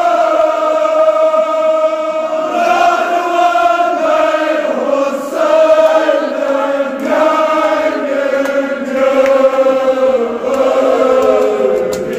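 Men's voices chanting a Kashmiri marsiya, a mourning elegy, together in long held notes that slowly glide up and down.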